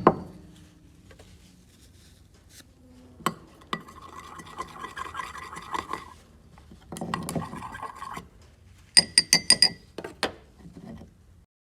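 A utensil stirring and scraping in a cup of heated, glitter-filled liquid lure plastic, then a quick run of ringing clinks about nine seconds in as it knocks against the cup.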